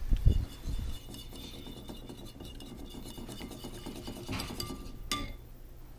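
A spoon stirring a liquid mixture in a ceramic bowl, scraping with many fine ticks, then a sharp tap with a short ring about five seconds in. A few dull thumps in the first second.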